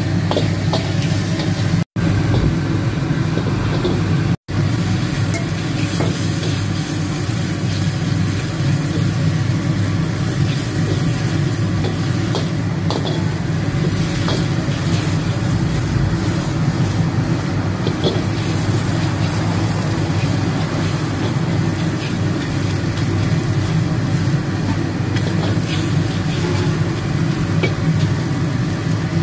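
Steady low roar of a gas wok burner, with food sizzling and a steel ladle scraping and clinking against the wok during a stir-fry. The sound cuts out for an instant twice in the first few seconds.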